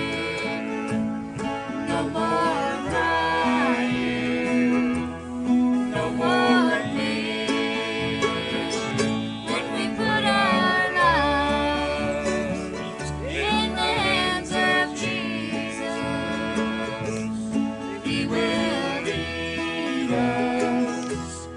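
Small acoustic band playing a country song, plucked guitar under a wavering melody line with a steady bass.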